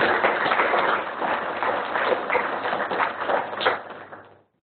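Audience applauding: a dense patter of hand claps that thins out and stops near the end.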